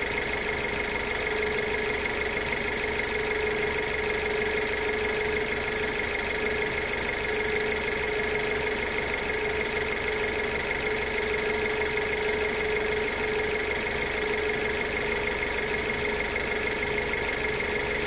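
BMW E90 318's four-cylinder petrol engine idling steadily at about 700–800 rpm, with its faulty number-one fuel injector replaced and no fault codes present.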